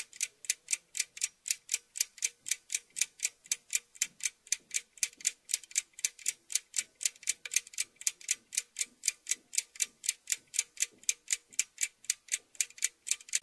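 Clock-like ticking, fast and even, at about four ticks a second.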